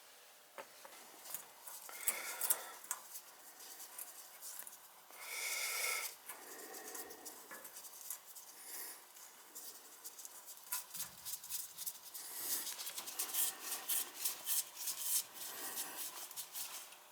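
Tools and small metal parts being handled: scattered light clicks, clinks and rustling, with a short scraping sound about five seconds in and busier clicking near the end.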